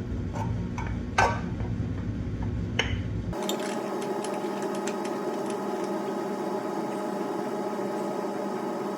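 A few sharp clicks and knocks over a low rumble as a new oil filter is screwed back onto a Honda CBR954 engine by hand. About three seconds in, the sound changes abruptly to a steady hum with faint ticks.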